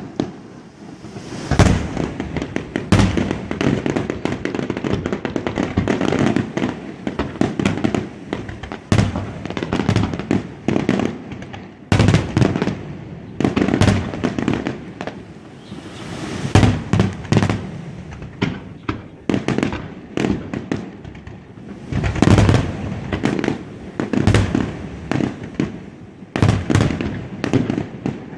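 Fireworks display: rapid, irregular bangs and crackles, many overlapping, with rumbling echoes between them.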